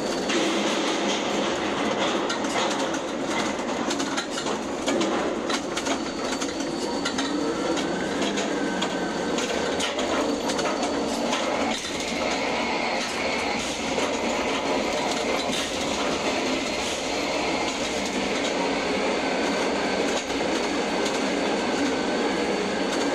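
Ship-to-shore container crane's hoist and trolley machinery running as a container is lifted from a ship's hold and carried out over the dock, heard from the operator's cab: a steady clatter and rattle, with a high whine that comes and goes a few times.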